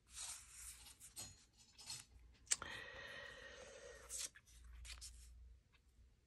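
Faint rustling and sliding of paper pieces being handled and laid on a journal page, with a sharp click about two and a half seconds in and a brief steadier scrape just after it.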